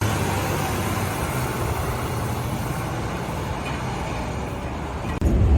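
Steady city street noise: traffic running with a constant hiss. About five seconds in, it cuts abruptly to louder, rumbling noise.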